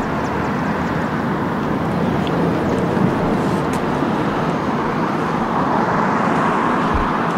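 Steady road traffic noise: a constant rush of cars passing on a city street.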